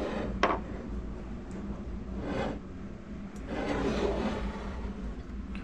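Handling noise from the feather flesher's metal hood and base rubbing and scraping on a wooden desk as it is turned and moved about, with a light knock about half a second in.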